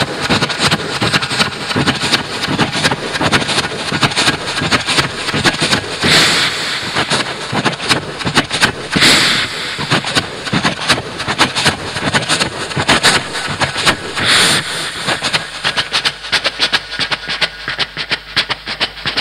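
Vocal mimicry of a steam train through a microphone: fast, even chuffing with louder hissing blasts of steam three times.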